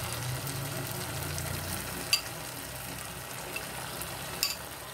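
Chicken pieces sizzling in a stainless steel pot as pineapple chunks are tipped in from a bowl. Two sharp knocks stand out, one about two seconds in and one near the end.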